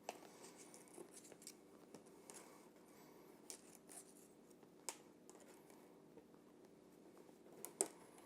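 Near silence broken by a few faint ticks and scratches of thin steel picture-hanging wire being handled and pulled tight through a frame hook, with a pair of slightly louder clicks near the end.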